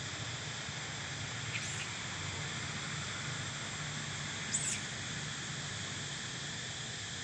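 Steady outdoor drone of insects in the trees, with two short high chirps about one and a half seconds and four and a half seconds in.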